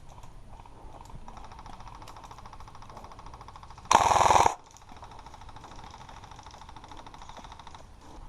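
Airsoft guns firing on full auto: a steady, fast rattle of fire somewhat away for most of the stretch, and one short, much louder close burst about four seconds in.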